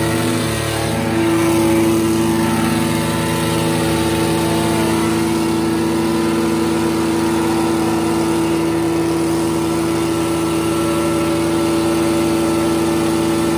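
An engine running steadily at a constant speed, a loud, unchanging hum with a slight shift in pitch about a second in.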